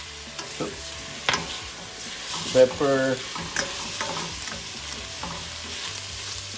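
Shredded chicken breast sautéing in oil in a pan: a steady sizzle as it is stirred, with a few sharp knocks of the utensil against the pan, the loudest about a second in.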